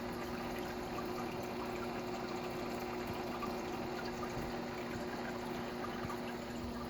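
Small aquarium waterfall trickling and splashing over rocks in a paludarium, with dripping, over a steady low hum.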